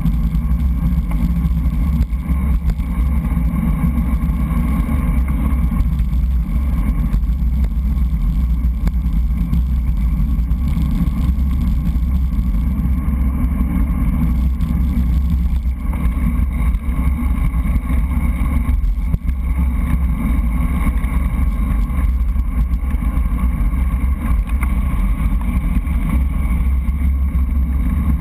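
Steady low rumble of wind buffeting a bike-mounted GoPro's microphone, mixed with tyre and road noise from a bicycle rolling along at riding speed.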